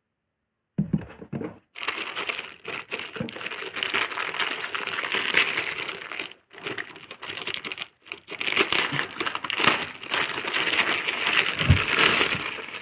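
Clear plastic wrapping crinkling and rustling as hands handle it and pull it off a wooden-cased portable speaker, starting about a second in with short pauses along the way.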